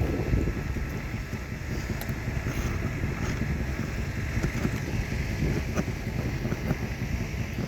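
Wind buffeting the microphone in a steady low rumble, with a few light clicks and taps scattered through it.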